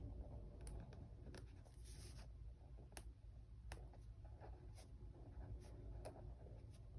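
Faint scratching on paper with scattered light clicks, as stationery is worked across a planner page.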